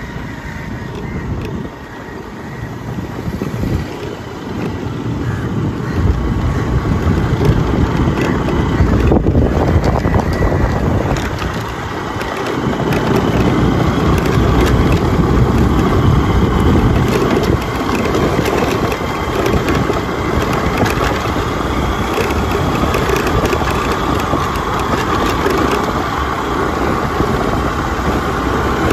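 Wind buffeting a phone microphone while riding along a road: a steady rushing noise that grows louder about six seconds in.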